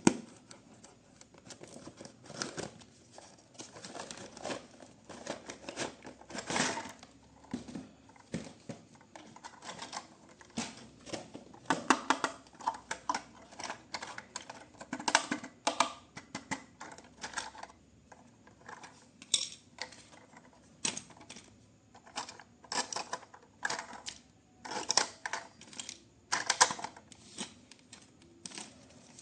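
Hands handling a toy and its packaging: irregular clicks, taps and rustles, some in quick clusters.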